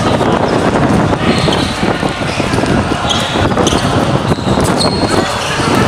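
A basketball bouncing on a hard outdoor court, with a few short, high sneaker squeaks, over a steady, loud background noise.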